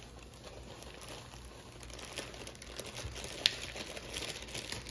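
Plastic bag of brownie mix crinkling and rustling as it is tipped and shaken out into a mixing bowl, with one sharp tap about three and a half seconds in.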